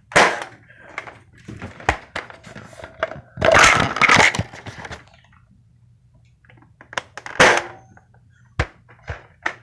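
Nerf blaster shots and foam darts hitting, heard as sharp cracks and thuds at irregular intervals. The loudest come just after the start and about seven seconds in, with a longer burst of noise around three and a half seconds.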